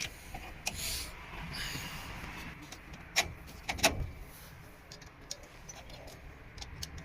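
Hand tools and metal fittings clicking and clinking during electrical repair work, with brief scraping and two sharp clacks about three and four seconds in.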